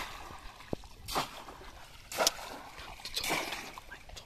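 Bamboo cone fish trap slapped down into river water again and again, splashing four times about once a second.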